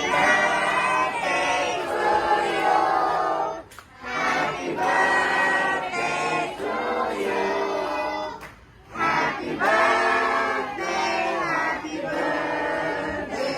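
A group of people singing together, a birthday song for the cake, in long phrases broken by two short pauses.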